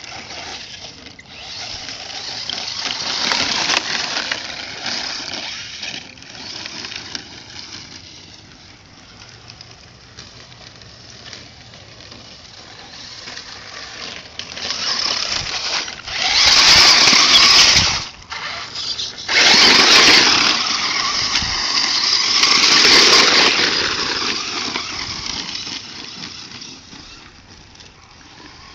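Radio-controlled cars driving over dirt, their motors whining and swelling with the throttle. The sound is loudest in two long stretches past the middle.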